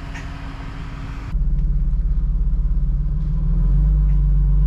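Ford Transit camper van's engine running at low speed while the van is maneuvered and parked. About a second in the sound turns into a louder, deeper rumble with a fast, even pulse.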